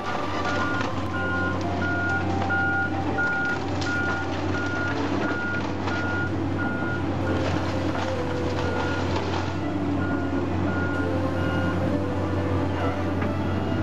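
A back-up alarm beeping steadily, one high tone repeating a little under twice a second, over the steady low running of a Cat excavator's diesel engine. Brick and timber debris crash and clatter at times as the wall is torn down.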